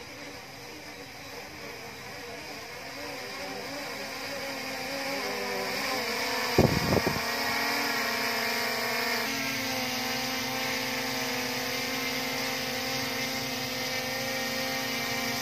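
DJI Mini 3 Pro drone's propellers buzzing as it descends, getting louder as it comes closer, then hovering low with a steady hum. A few brief thumps about halfway through.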